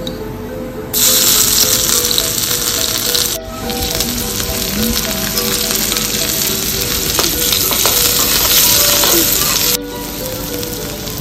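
Boiled potato pieces sizzling in hot oil in a miniature steel kadai while being stirred with a small spoon. The sizzle starts about a second in, breaks off for a moment, and drops away shortly before the end.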